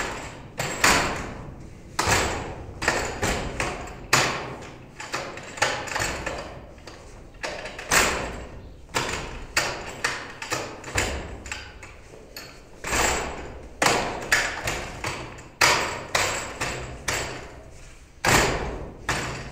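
Hands and forearms striking the arms and trunk of a wooden Wing Tsun dummy (mook yan jong): quick, irregular wooden knocks and clacks, a few a second, with short pauses between runs of strikes.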